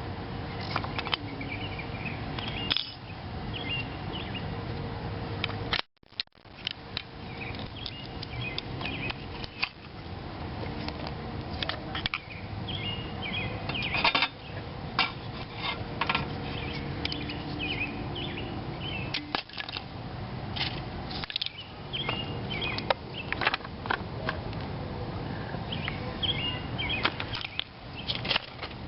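Scattered metallic clicks and clinks of hand tools working the bolts of a motorcycle's front brake caliper, with short high chirps now and then behind them.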